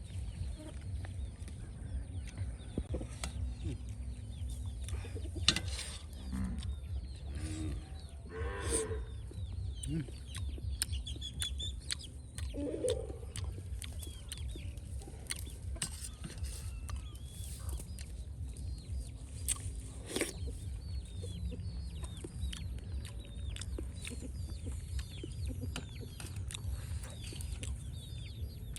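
Chickens clucking off and on, with many short high chirps and scattered clicks over a steady low rumble.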